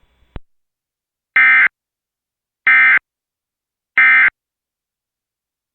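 Emergency Alert System end-of-message signal: three short digital data bursts, each about a third of a second and about a second apart. These are the SAME tones that mark the end of the alert.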